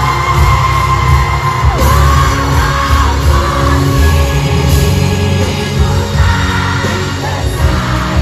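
Loud live pop performance: a female singer belting into a handheld microphone over a full band with electric guitar and heavy bass, amplified through a PA in a large hall. She holds a long note through the first couple of seconds.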